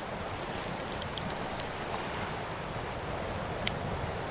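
Steady wash of ocean surf, with a few faint high clicks in the first second or so and one more about three and a half seconds in.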